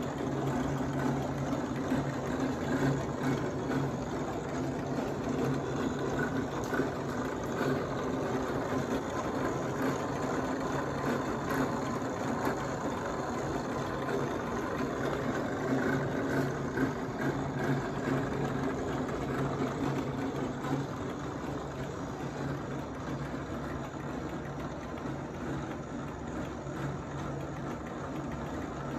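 Code 3 MX7000 light bar running with its rotator motors turning the lamps and reflectors, a steady mechanical whirring with a low hum and gear chatter.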